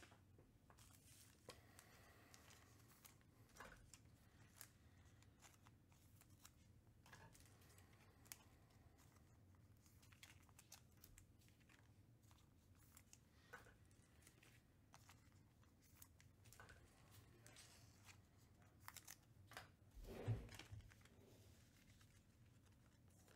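Faint crinkling and tearing of foil trading-card packs being opened and the cards handled, with scattered soft clicks. A dull bump about twenty seconds in is the loudest sound.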